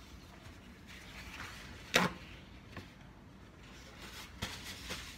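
A single sharp knock on the kitchen counter about two seconds in, then soft rustling of paper towels with a few light taps.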